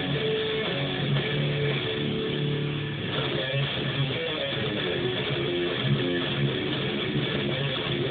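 Electric guitar being played: notes held for the first few seconds, then a run of shorter picked notes.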